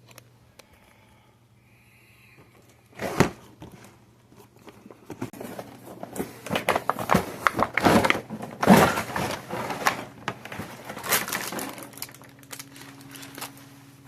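Plastic packaging rustling and crinkling as it is handled and pulled open, with a single sharp noise about three seconds in and a long stretch of dense rustling through the middle.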